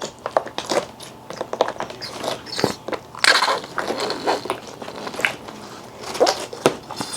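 Irregular crackling, clicking and crunching handling noises from slime-making supplies (glue bottle, bowl) being handled.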